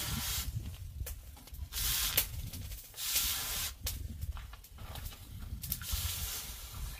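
Knife blade being sharpened against an abrasive in a series of hissing, rasping strokes with short pauses between.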